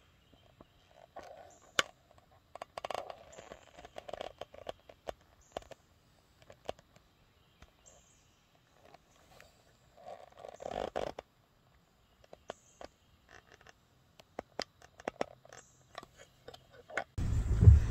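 Quiet woods at dawn: scattered faint clicks and rustles of leaves and twigs, with a few short high bird chirps. Near the end a steady low vehicle rumble comes in suddenly.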